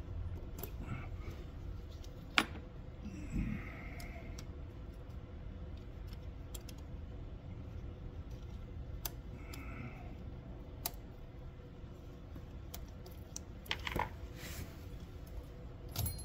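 Scattered light metallic clicks and clinks of hand tools and loose fasteners being handled during engine disassembly, the sharpest about two and a half seconds in and a small cluster near the end, over a steady low hum.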